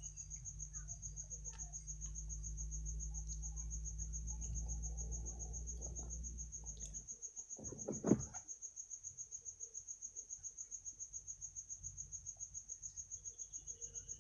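An insect trilling steadily, a high, fast-pulsing trill that never breaks. A low hum underneath stops about seven seconds in, and a single sharp knock comes about a second later.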